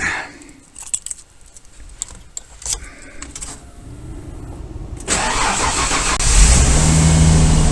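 A few light clicks, then a 1994 Ford F250's engine is cranked by the starter about five seconds in and catches about a second later, running steadily.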